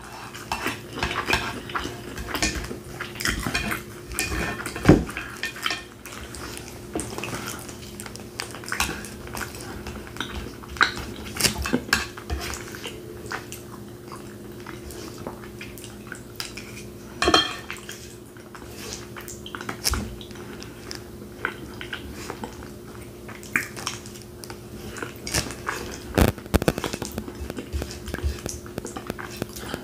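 Metal fork clinking and scraping against a plate as beans and steak are scooped up, in scattered sharp clicks, with close-up chewing between them. A faint steady low hum sits underneath.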